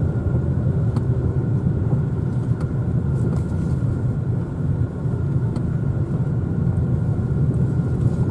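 Car engine and tyre rumble heard from inside the cabin while driving, steady and low, with a few faint clicks.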